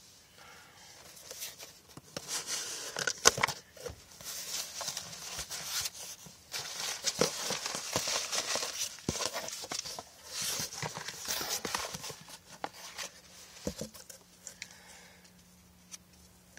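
Cardboard package being opened by hand: bursts of rustling, crinkling and tearing of paper and packing, with sharp clicks and knocks, dying down near the end.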